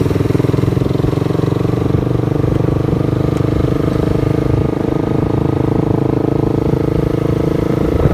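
Yamaha R15 V2's 150 cc single-cylinder engine running at a steady, even engine speed, with no revving.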